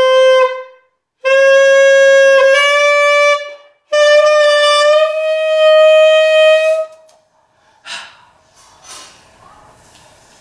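Alto saxophone playing a series of long held notes with short breaks between them, each step a little higher in pitch than the one before. The last note is held about two seconds before it stops. A single short knock follows about a second later.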